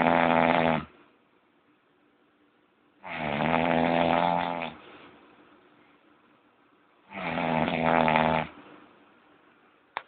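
Loud snoring in a steady rhythm: three long snores about four seconds apart, each lasting over a second, with quiet breathing between. The first snore is already under way and ends about a second in.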